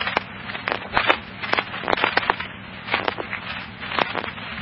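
Fire-department radio heard through a scanner, the channel open with no one talking: a steady hiss with irregular sharp crackles of static.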